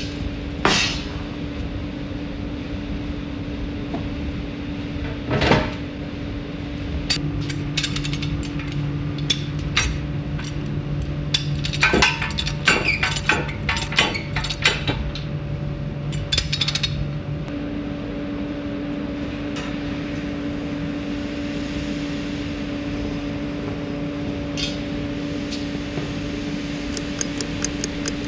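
Metal clanks and knocks from the door and clamps of a yarn-steaming autoclave being worked, over a steady hum. Near the end a mechanical kitchen timer starts ticking quickly.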